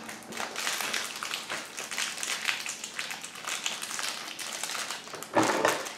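Crinkling and rustling of snack packaging handled in the hands: a stream of small irregular crackles and clicks, with a louder rustle about five and a half seconds in.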